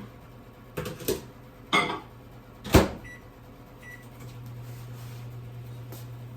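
Microwave oven being started: a few knocks and clicks, the door shutting with a sharp snap about three seconds in, and two short keypad beeps. Then the oven runs with a steady low hum while it melts a dish of butter.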